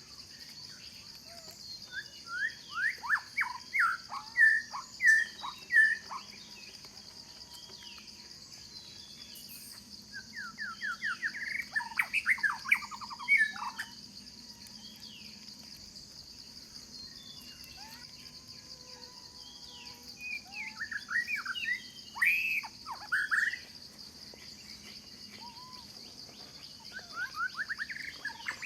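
Songbirds singing in four bursts of rapid chirps, each a few seconds long with pauses between. Under them runs a steady high-pitched insect drone.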